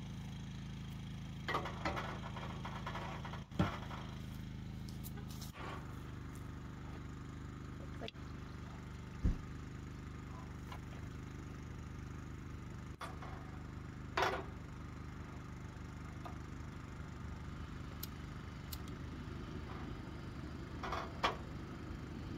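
A generator running with a steady low hum, with occasional short clinks and clatters of a pot and camp stove being handled.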